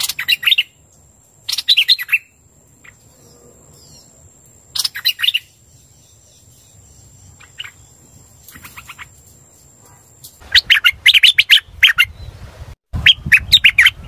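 Hoành hoạch birds (quành quạch) singing: short phrases of quick chirping notes with pauses between them, then a longer run of rapid, loud notes from about ten seconds in. This is lure song, played to draw wild birds of the same kind to a trap.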